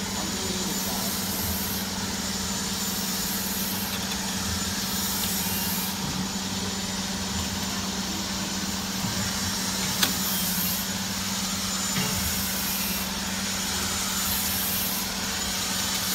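Steady hum and whir of a running CNC 3D wire-bending machine, with a faint high hiss recurring about every two seconds and a single sharp click about ten seconds in.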